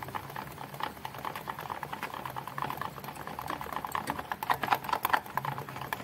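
Thick gram-flour (besan) pakora batter being beaten by hand in a plastic bowl, with rapid, irregular wet clicking strokes that grow louder about four to five seconds in.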